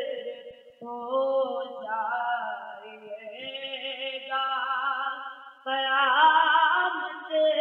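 Naat sung a cappella, with several voice parts holding a slow melody with vibrato. It comes in phrases, with short breaks about half a second in and again past the middle.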